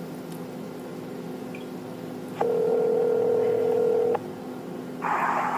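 Telephone ringback tone through a phone's speaker: one steady ring about two seconds long, heard while the outgoing call is ringing at the other end. A short burst of noise follows near the end.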